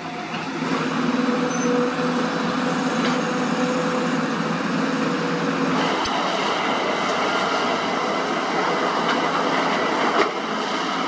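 Heavy construction machinery running steadily, a diesel engine with held mechanical tones. About six seconds in the sound shifts and higher whining tones come in, and there is a single sharp knock near the end.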